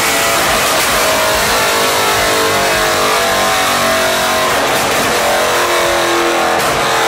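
Straight-piped Mercedes C63 AMG (W204) 6.2-litre V8 running hard on a rolling-road dyno, loud and raw, with its pitch wavering up and down as the revs change rather than in one clean sweep.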